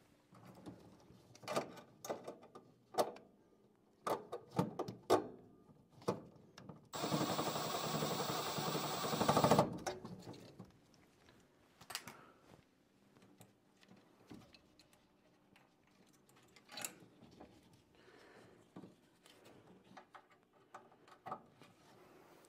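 Scattered clicks, knocks and rattles of hands working on furnace parts and wiring, with a loud steady whirring noise lasting about three seconds near the middle that cuts off suddenly.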